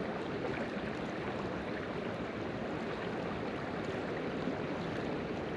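Steady rushing outdoor noise of a fast-flowing river's current, mixed with wind on the microphone.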